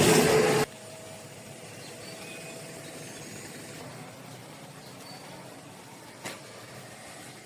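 Loud road-vehicle rush that cuts off sharply under a second in. A faint steady vehicle hum follows, with one short click about six seconds in.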